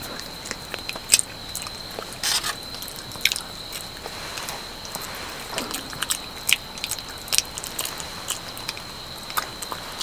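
Close, irregular small crunches, clicks and crinkles of someone handling and eating foil-wrapped roasted sweet potato and chestnuts that are not yet fully cooked, with a faint steady high whine throughout.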